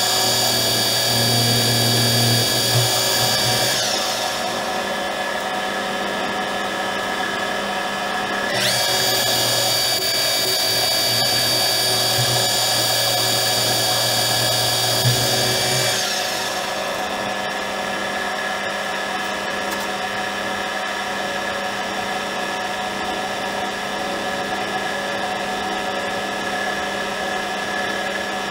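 Metal lathe turning a metal ring, with a steady machine whine throughout. The cutting tool is in the work for about the first four seconds and again from about nine to sixteen seconds in, adding a louder grinding rumble and ringing. For the rest, the lathe runs on more quietly without cutting.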